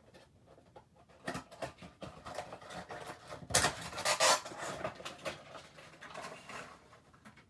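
A cardboard Funko Pop box being opened and the vinyl figure slid out of its plastic insert: irregular rustling, scraping and clicking, loudest in a burst about halfway through.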